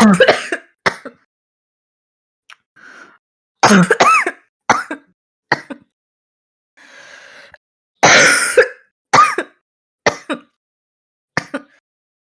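A young woman clearing her throat hard and coughing deeply, with a harsh, barking sound: a series of short bursts in clusters, with pauses and audible breaths between them.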